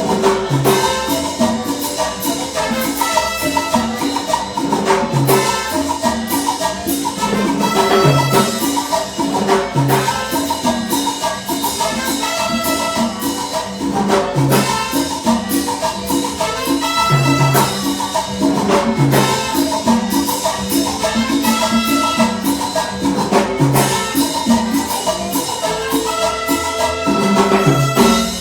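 A live Latin salsa band plays an instrumental number during a sound check, with no vocals yet: a repeating bass line under piano or mallet-like keyboard figures and percussion. The band stops abruptly at the end.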